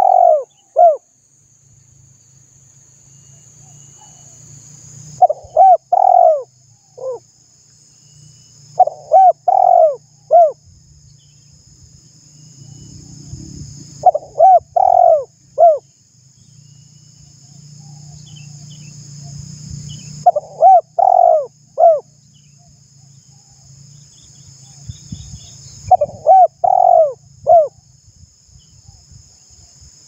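Spotted dove cooing: short phrases of three or four coos, repeated about every five to six seconds, over a steady high hiss.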